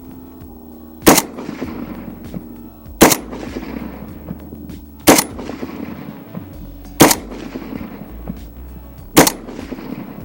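Palmetto State Armory AK-47 in 7.62x39 firing five single shots of Wolf steel-cased 122-grain hollow point, evenly spaced about two seconds apart, each shot followed by a short echo.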